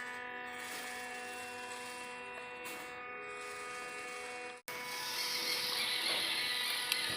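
Small electric motors and gearboxes of RC construction models whining steadily. After a brief cut about two-thirds of the way through, a louder rasping, gritty noise joins the whine.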